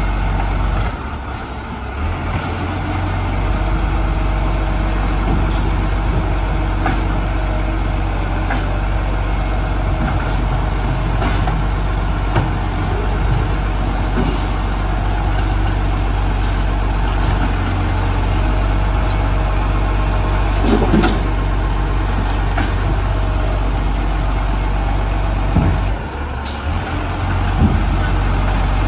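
Dennis side-loading garbage truck's diesel engine idling steadily, with a few scattered clicks and knocks; the level dips briefly about a second in and again near the end.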